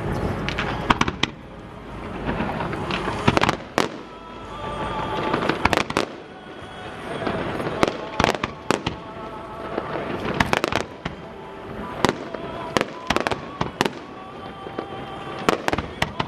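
Fireworks display: shells bursting in many sharp bangs at irregular intervals, often in quick clusters, over a continuous rumble and hiss.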